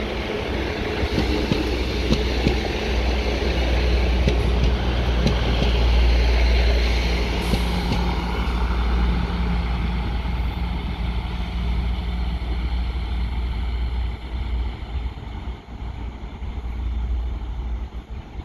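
Diesel locomotive engine rumbling steadily as a train goes by, easing off and fading over the last few seconds.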